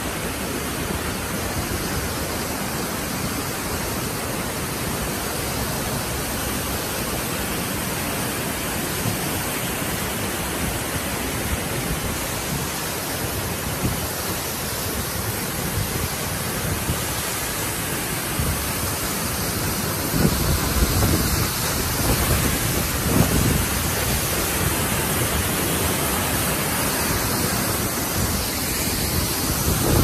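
Mikaeri Falls, a tall waterfall, pouring: a loud, steady roar of falling water. Low, gusty rumbles join in about two-thirds of the way through.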